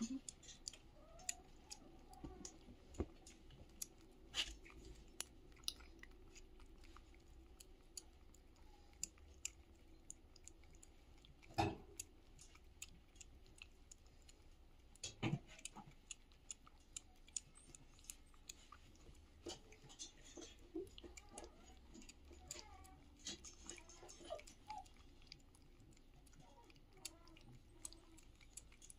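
Faint, irregular wet smacking and clicking of a kitten and a cat eating wet cat food from a plastic bowl, with a few sharper clicks about 12 and 15 seconds in.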